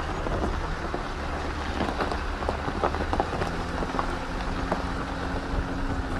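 Vehicle engine running at low speed in a steady low hum while the tyres crawl over a rough rocky trail, with scattered clicks and crunches of gravel and stones under them.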